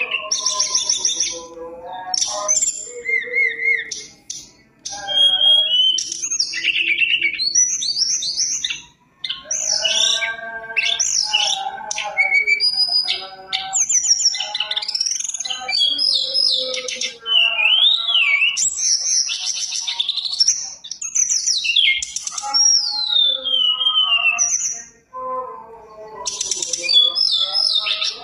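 Caged tledekan gunung (sulingan gunung) songbird singing a long, varied song of whistled phrases, fast trills and rising and falling glides, broken by short pauses about 4, 9 and 25 seconds in. The song is full of 'isian', the borrowed fill-in phrases that bird keepers prize.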